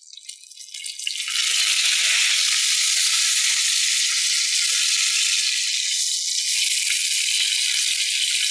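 Duck breast sizzling in rendered duck fat in a frying pan, a loud, steady hiss that swells up about a second in as the meat is turned onto its side to sear.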